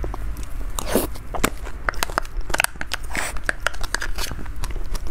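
Close-miked eating of an icy cream dessert: a metal spoon clicking and scraping in a plastic box, with mouth sounds of biting and chewing the half-frozen cream.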